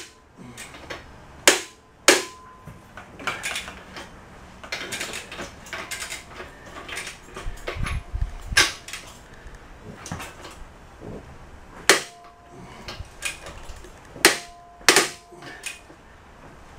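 Several sharp, loud cracks from large steel bolts on a jackshaft bearing housing being broken loose with a long wrench: the bolt threads popping free under torque, with quieter metal clinks of the wrench between.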